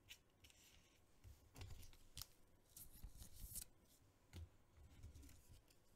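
Faint scuffs and light clicks of sports trading cards being handled and slid through a pack by hand, a few soft scrapes spread out and none loud.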